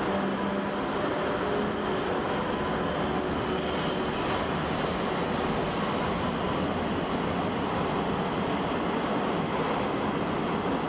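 Twilight Express sleeper coaches rolling past along the station platform: a steady rumble and rush of steel wheels on rail, with no sudden knocks or breaks in it.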